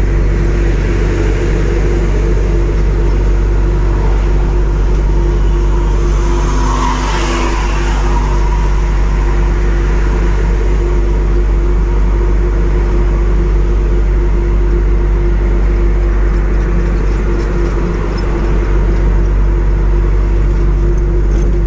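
Steady drone of a truck's engine and road noise heard inside the cab while cruising on a highway, with a short swell of hiss about seven seconds in.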